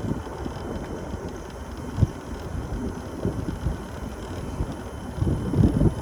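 Wind buffeting the microphone of a moving mobility scooter, with irregular low rumbling gusts that grow louder near the end and a single thump about two seconds in.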